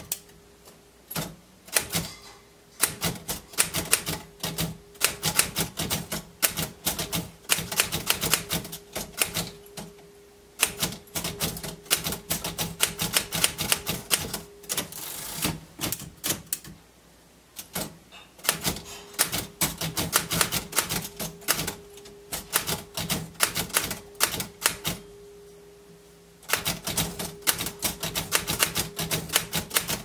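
Royal manual desktop typewriter being typed on: rapid runs of sharp key strikes, broken by brief pauses where the carriage is returned by its lever, once about halfway through.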